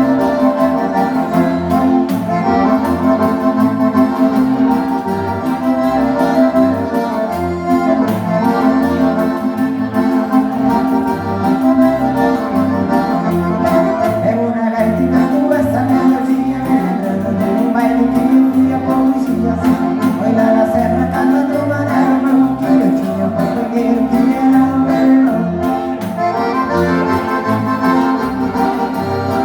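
Live gaúcho dance music led by an accordion (gaita), holding chords over a regular pulsing bass.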